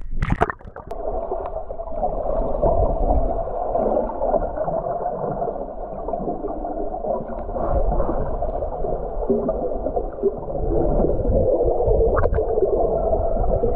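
Muffled underwater noise: a steady rushing and gurgling of water heard below the surface, cut off above the mid range, after a brief sharp noise at the very start.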